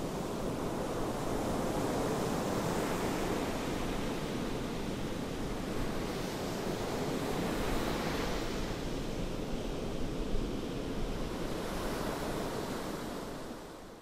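Ocean surf washing onto the shore: a continuous rush of water that swells a few times as waves break, then fades out near the end.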